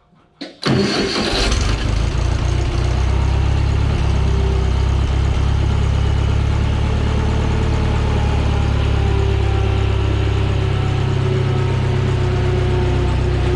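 New Holland L775 skid steer engine running steadily after coming in abruptly just under a second in, with a faint click just before.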